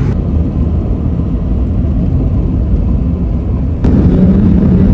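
Car driving, heard from inside the cabin: a low, steady engine and road rumble. About four seconds in it jumps abruptly louder and a steady engine hum comes in as the car moves at road speed.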